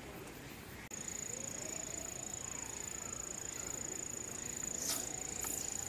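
Quiet outdoor ambience: a steady high-pitched tone over faint, indistinct background voices, with a brief click about five seconds in.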